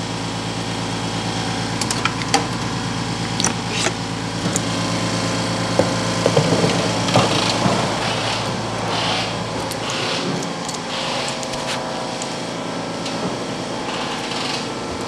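California Air Tools air compressor running steadily as it fills its tank. Scattered clicks and knocks sound over it in the first half, and short hissy bursts come about once a second in the second half.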